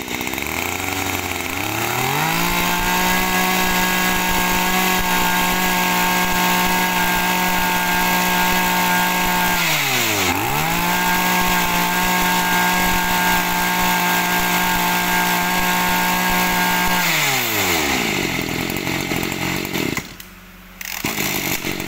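Small 23cc two-stroke brush cutter engine idling, then revved to full throttle. The revs drop and pick up again briefly about ten seconds in, then fall back to idle near the end, and the engine cuts off about twenty seconds in.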